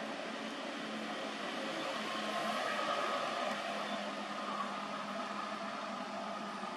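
Steady, even whirring background noise with a faint hum underneath, and no distinct calls or knocks.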